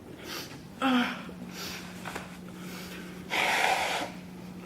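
A person with a cold sniffling and breathing heavily: a few short noisy breaths, a brief voiced gasp about a second in, and a longer snort through the nose at about three and a half seconds.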